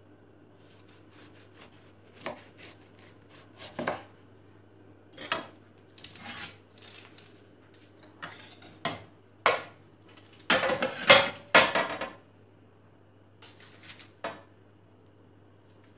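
A kitchen knife cutting through a once-baked biscotti loaf onto a wooden board, then a metal baking tray clattering as it is handled and the slices are laid on it. Scattered knocks and clatters, busiest and loudest about ten to twelve seconds in.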